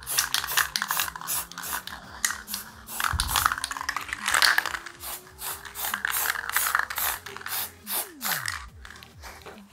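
Aerosol spray-paint can being shaken, its mixing ball rattling in an even rhythm of about four strokes a second.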